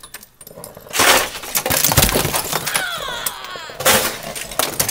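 Icicles breaking off a roof edge under a roof rake and crashing down, a dense clatter and shatter of ice starting about a second in, with a heavy hit about two seconds in.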